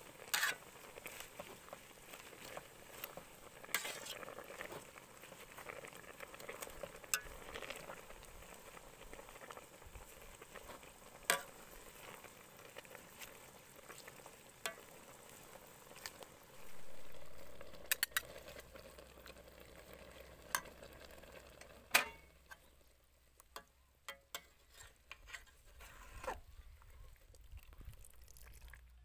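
Metal ladle stirring and scooping lettuce and fish in an aluminium pot of broth on a gas stove, with scrapes and sharp knocks of the ladle against the pot over a steady hiss. The hiss drops away about three-quarters of the way through, leaving only small clicks.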